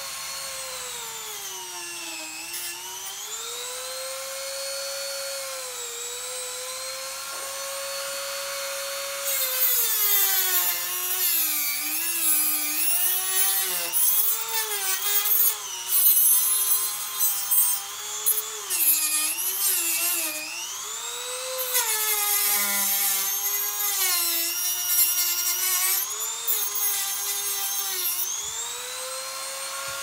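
Corded Dremel rotary tool with a cutting wheel whining at high speed as it cuts into the bead of an ATV tire at the steel rim. Its pitch sags briefly early on, then from about a third of the way in keeps dropping and wavering under load, with loud, rough grinding, before climbing back to full speed near the end.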